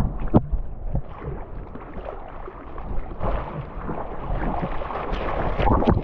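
Ocean surf churning and splashing close to the microphone, as rough steady water noise with irregular sharper splashes, a strong one just after the start and another near the end.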